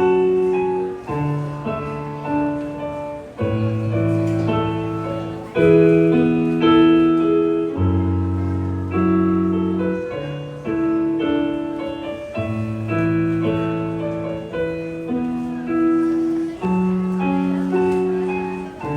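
Solo piano playing slow chords, a new chord struck every second or two and left to ring and fade.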